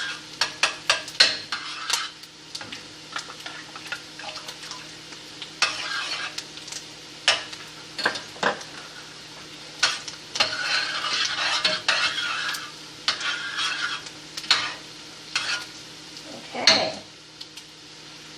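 A utensil stirring and scraping in a pot of sauce, with many sharp clinks and knocks against the pot.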